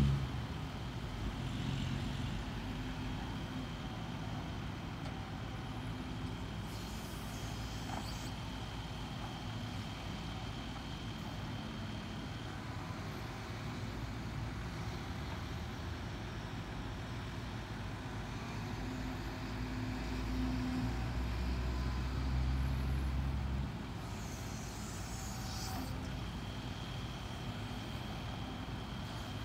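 Heavy diesel engine of a dump truck running steadily, swelling about twenty seconds in and dropping back suddenly a few seconds later.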